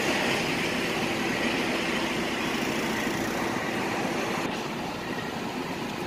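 A semi truck's diesel engine running, heard from inside the cab as a steady drone with a low hum under it, a little quieter near the end.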